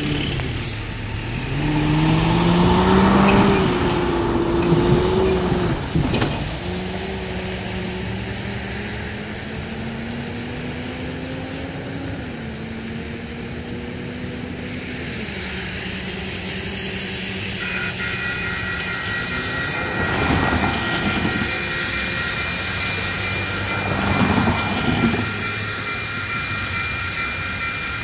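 Diesel truck engine pulling away through its gears, its pitch rising and dropping at each shift. About two-thirds of the way in, the grade crossing's warning bell starts ringing steadily as a train approaches.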